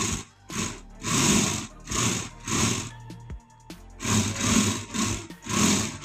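Toy RC stunt car's small electric drive motors and plastic gearboxes whirring in repeated short bursts as it is driven on its roller wheels.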